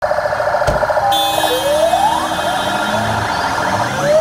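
Sirens on a convoy of police and military pickup trucks, several tones overlapping: one siren rises in pitch about a second and a half in and another starts rising near the end, over the vehicles' engines.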